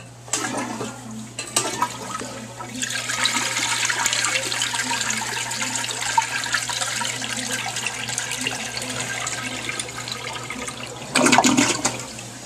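Tank toilet flushing: water rushes and swirls down the bowl for several seconds, with a brief louder burst near the end before it dies down.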